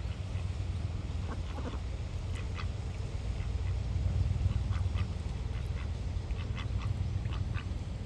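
Ducks giving short quacking calls, a few scattered in the first half and a quicker run of them in the second half, over a low steady wind rumble on the microphone.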